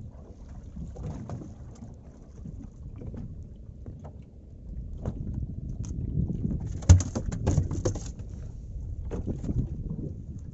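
Low rumble of wind and water around a small open boat, with a quick flurry of knocks and taps on the boat about seven seconds in, the loudest a single sharp knock, as a freshly caught grouper is handled and put down on the deck.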